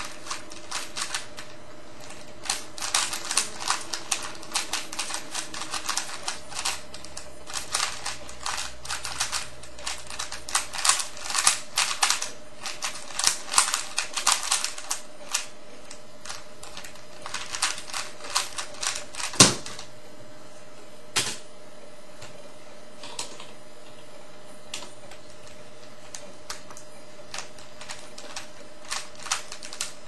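A 3x3 Rubik's cube with Cubesmith tiles being turned fast in a speedsolve: rapid, dense clicking and clacking of the layers, thinning after about halfway to scattered turns. There is one loud sharp knock about two-thirds of the way through.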